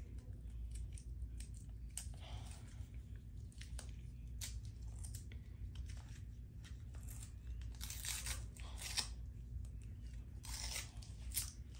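Plastic candy wrapper being picked and torn open by hand, in scattered short crinkles and rustles, with a faint low hum underneath.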